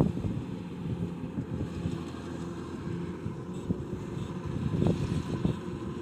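Kubota DC105X rice combine harvester's diesel engine running steadily at work, a low rumble, with wind buffeting the microphone in gusts at the start and again near the end.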